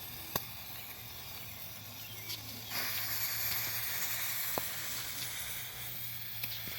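Steady hissing of fireworks and cardboard burning, which grows louder about three seconds in, with a few faint pops.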